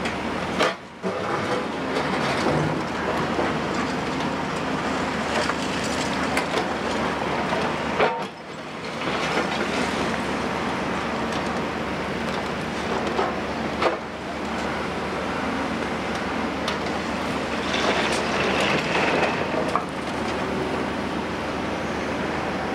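Cat 352F hydraulic excavator's 15.2-litre Cat C15 ACERT diesel engine running steadily under load, with frequent clanks and scraping of concrete demolition rubble in and against the steel bucket as it digs and loads a tipper truck.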